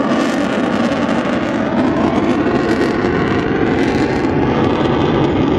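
Loud, steady jet noise from an F-22 Raptor's twin turbofan engines as the fighter flies overhead, with a faint tone that shifts slowly in pitch.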